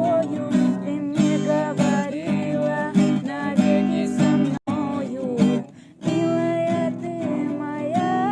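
Acoustic guitar strumming and picking the accompaniment to a song, with a short break a little past halfway before it picks up again.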